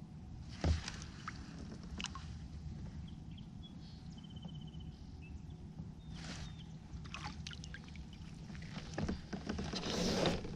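Water lapping and splashing around a fishing kayak, with a sharp knock on the hull under a second in. The splashing grows louder near the end as a hooked crappie is reeled up to the boat.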